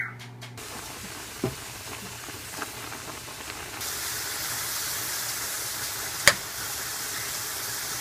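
Ground beef sizzling as it browns in a skillet, stirred with a wooden spatula. The hiss grows louder about four seconds in, and there is one sharp tap about six seconds in.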